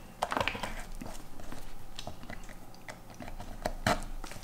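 Small plastic clicks and knocks of multimeter test leads being handled and their plugs pushed into the meter's input jacks, with sharper clicks about half a second in and near the end.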